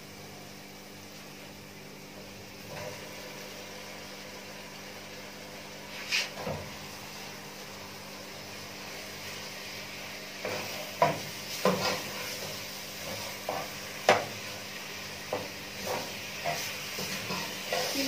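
Minced meat sizzling as it is browned in an aluminium pot, a steady hiss. A metal spoon knocks and scrapes against the pot as the mince is stirred, once about six seconds in and then often through the second half.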